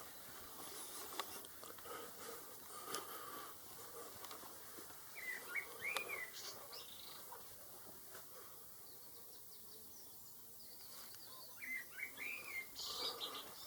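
Faint birdsong: a small songbird gives short chirping phrases about five seconds in and again near the end.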